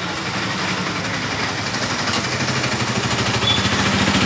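A motor vehicle engine idling steadily, with a low, even rumble. A light click comes about two seconds in.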